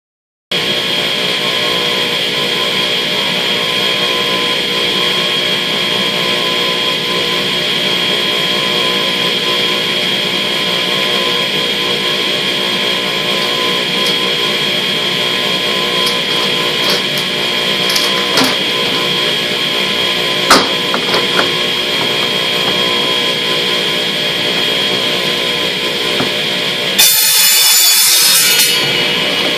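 Ridgid radial arm saw running steadily with a steady hum, its blade spinning free, with a few knocks. About 27 seconds in, the blade is pulled through a row of white plastic (PVC) pipes, a harsh, louder cut lasting about two seconds.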